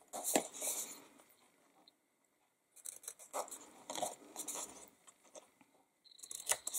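Small paper scissors snipping the corners of folded cardstock at a slant, with the card rustling as it is turned. There are three short groups of snips: one at the start, one about three seconds in, and one near the end.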